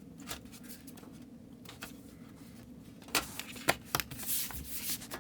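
Aluminium bottom cover of a 2014 MacBook Pro being handled and pressed back onto the case: a few light clicks, then sharper clicks and taps from about three seconds in, with brief scraping near the end.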